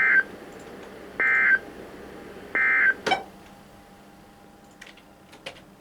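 EAS end-of-message code on NOAA Weather Radio: three short, loud bursts of warbling digital data tones about a second apart, closing the weekly test. A sharp click follows just after the third burst, then a few faint clicks near the end.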